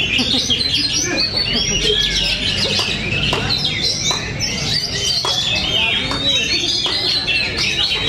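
Several caged Oriental magpie-robins (kacer) singing against one another: a dense chorus of overlapping whistles and chirps with no pause.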